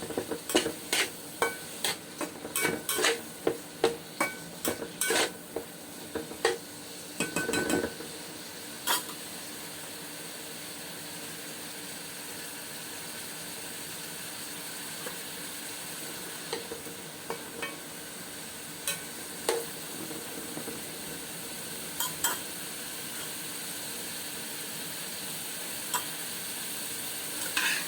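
Food sizzling in a frying pan while a utensil stirs it, knocking and scraping against the pan many times in the first several seconds, then a steady sizzle with only occasional taps.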